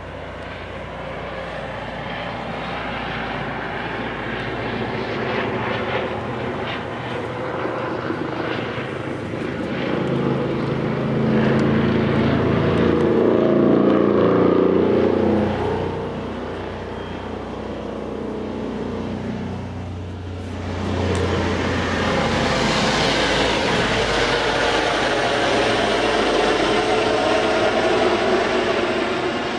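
Helicopter flying low overhead: loud rotor and engine noise that builds to a peak about halfway through, drops away briefly, then swells again.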